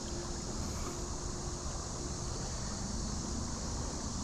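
Steady outdoor background noise, an even hiss with a low rumble underneath, with no distinct event.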